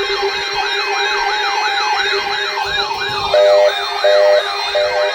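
Electronic siren tone in a fast yelp, its pitch rising and falling about twice a second over a steady lower tone. Three short, louder beeps sound in the second half.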